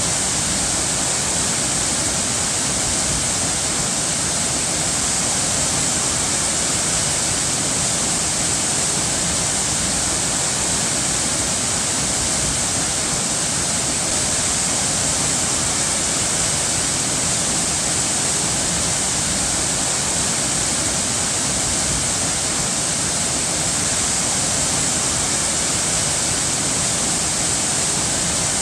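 Natural running water rushing steadily, a continuous even hiss with no change.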